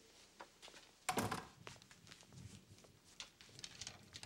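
A door shuts with a thud about a second in. Light metallic clicks follow as a door security chain is slid into place.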